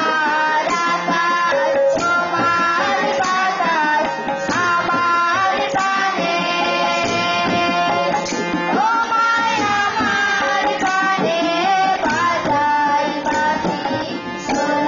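Children singing together to the accompaniment of a harmonium's held chords and hand drums, tabla and a barrel drum, played in a steady beat.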